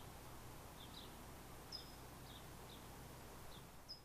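Faint birds chirping, short high calls scattered irregularly, over a soft outdoor ambience hiss with a low hum.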